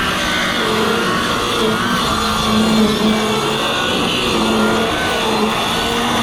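Power saw running under load as it cuts along a length of wood, a loud steady noise with a motor pitch that wavers as the blade works through the board.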